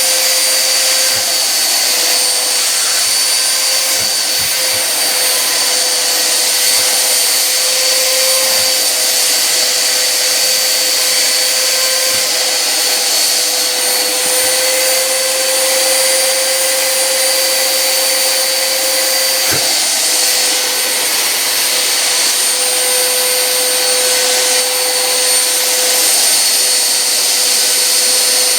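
Home-built vacuum cleaner rig of three vacuum cleaners running together at full power: a loud, steady rush of air with a steady whine and hum on top. There is one brief tick about two-thirds of the way through.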